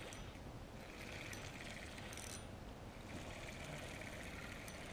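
Faint outdoor riverbank ambience: a soft steady hiss with a faint pulsing buzz that comes and goes, and a brief high hiss about two seconds in.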